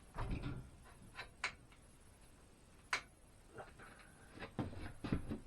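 Scattered clicks and knocks as the parts of a sliding miter saw are handled and adjusted, with one sharp click about three seconds in and a quick run of knocks near the end.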